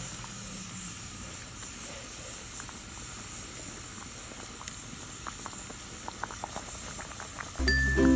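Pot of vegetable soup simmering on the stove, with scattered faint clicks and pops as a ladle stirs it in the steel pot. Music starts near the end.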